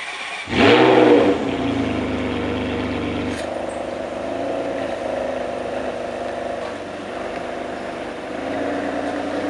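Novitec Rosso-tuned Ferrari 599 GTB's V12 starting. About half a second in it fires and flares loudly for a moment, then settles into a steady fast idle that drops a little lower about three and a half seconds in.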